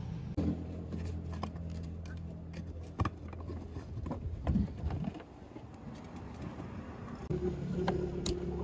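An engine idling with a steady low hum that stops about three seconds in and starts again near the end, with scattered clicks and knocks of hands working the plastic bumper trim around a fog light.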